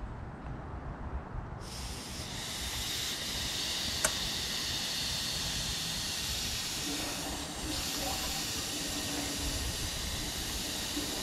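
Compressed air hissing steadily from an air-compressor blow gun into a PVC pipe sunk in a cesspool. The hiss starts suddenly about a second and a half in, when the trigger opens, and a sharp click comes about four seconds in. The air is agitating the sand on the bottom so that the pipe works deeper.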